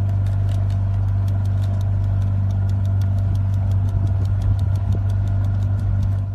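Motorboat engine running steadily: a low, even hum with a fast, regular ticking over it.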